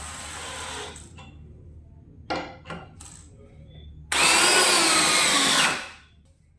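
DeWalt 20V Max XR brushless cordless hammer drill running and stopping about a second in, then three short trigger blips, then one loud run of about a second and a half with a wavering pitch that cuts off suddenly.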